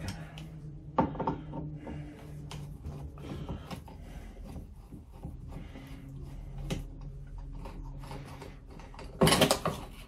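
A wall light switch and its wires being worked out of a metal electrical box by a gloved hand: a sharp click about a second in, another later, soft rubbing and scraping between them, and a louder metallic rattle near the end.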